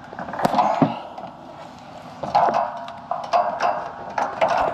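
Irregular knocks and thumps, several sharp ones close together about half a second in and more from about two seconds in.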